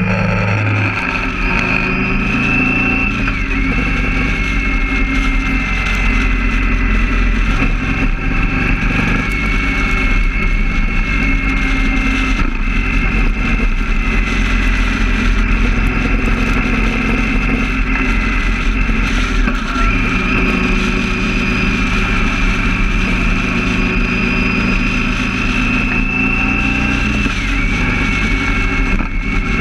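Motorcycle running at highway speed, with a steady rush of wind and road noise. The engine note shifts a few times as the throttle changes, and a steady high whistle wavers over it.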